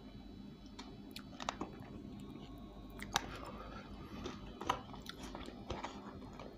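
A person chewing spicy fried chicken, with scattered small clicks and crackles as pieces are picked apart in a paperboard box.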